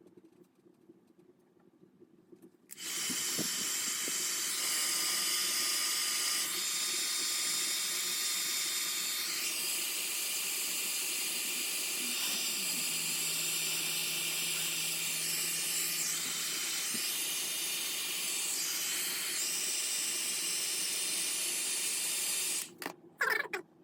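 A steady, loud hiss of rushing air starts about three seconds in and cuts off near the end. A low steady hum joins it about halfway through.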